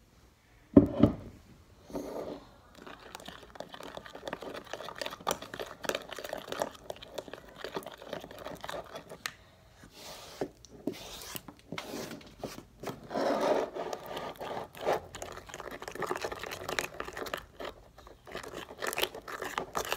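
Plastic spoon stirring and scraping in a plastic tub of slime as Tide laundry detergent activator is worked in, with many small clicks and scrapes. A sharp knock comes about a second in.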